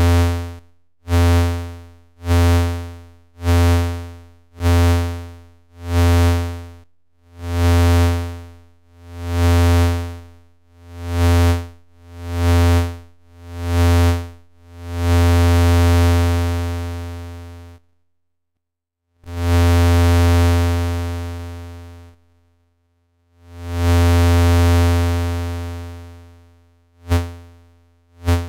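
Low synthesizer tone from a Eurorack oscillator, pulsed by a self-cycling Make Noise Contour envelope: a sharp-attack, decaying note repeats about every 1.2 s. About halfway through, with the decay turned up, the notes stretch to about three seconds each with silent gaps. Near the end they snap back to short plucks.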